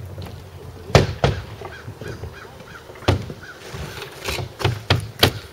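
Sharp knocks on the bare wooden roof deck, two loud ones about a second in and a quicker run of them near the end, while a bird calls faintly about five times in a row in between.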